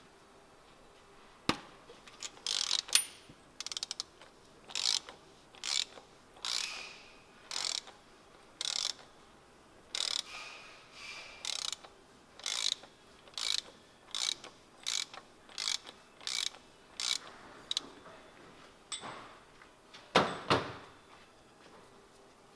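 Hand ratchet clicking in a run of short bursts, roughly one a second, as a cap-type filter socket unscrews the oil filter housing. A louder clatter comes near the end.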